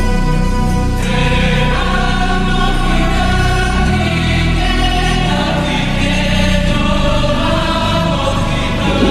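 Background music: a slow track of held, choir-like chords over a heavy, steady bass.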